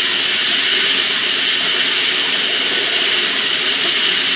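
Star roller running: a batch of dry pyrotechnic stars tumbling in its rotating stainless steel drum, a steady rushing hiss with no breaks. A hot glue seam on the polished drum gives the stars enough traction to cascade instead of sliding.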